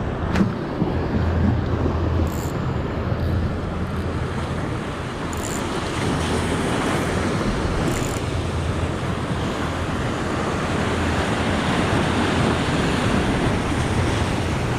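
Sea surf washing steadily onto rocky shore, with wind buffeting the microphone.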